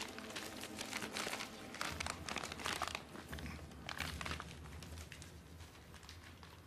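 Paper rustling and crinkling in quick bursts, as an envelope or prints are handled, thinning out near the end.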